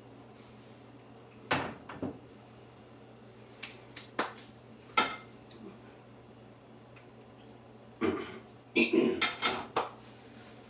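Kitchen items being handled: scattered knocks and clunks of pans, dishes and utensils, then a busier run of clattering near the end.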